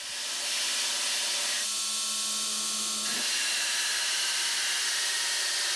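Belt sander grinding a steel bowie-knife blank to its rough profile: a loud, steady hiss of the abrasive belt on metal. Between about one and a half and three seconds in, a low hum and a higher tone stand out in it.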